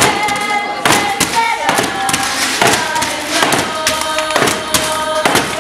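A group singing a song in unison, holding notes, while plastic water bottles are thumped down as a steady beat a little more than once a second.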